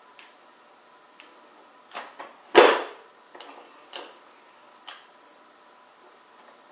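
Steel parts of a gantry crane beam trolley clanking together as it is handled and fitted: several separate metal knocks and clinks, the loudest about two and a half seconds in with a short ring.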